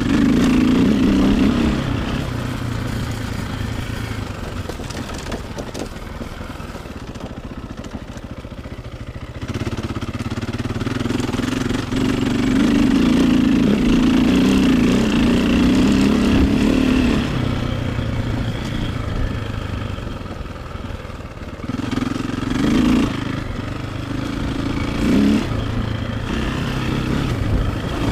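Dirt bike engine running as it is ridden along a dirt track, the throttle opening and closing: louder pulls near the start and in the middle, and two short sharp blips near the end.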